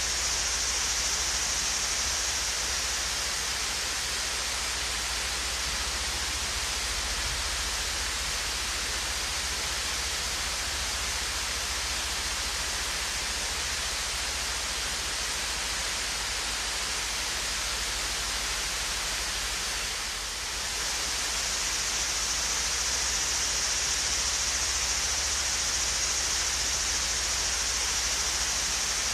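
Small waterfall pouring steadily, an even hiss of falling water, with a slight brief dip in level about twenty seconds in.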